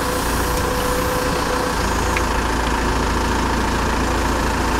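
Backhoe loader's diesel engine running steadily as its bucket digs a trench, with a faint steady whine that stops about a second and a half in.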